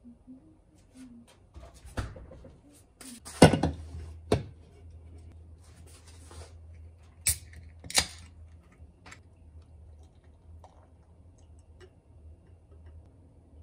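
Knocks of things set down on a kitchen worktop, the loudest about three and a half seconds in, then a can of Heineken beer opened by its ring-pull: two sharp snaps, each with a short fizzing hiss, about seven to eight seconds in.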